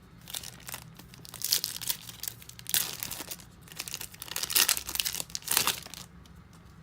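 Foil wrapper of a Bowman Chrome trading-card pack being torn open and crinkled in a series of crackling bursts, then going quiet near the end.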